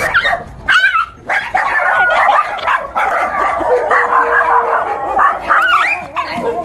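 Dog barking and yelping over and over in alarm at a fake tiger toy, in short, high, bending calls with brief pauses.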